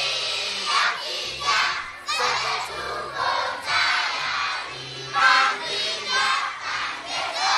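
Large crowd of children singing and shouting together in repeated bursts, over music with a held bass line.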